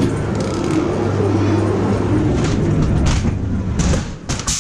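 Ghost train ride car rolling along its track with a steady low rumble and scattered knocks. Two louder bangs come close together near the end, as the car enters the dark ride.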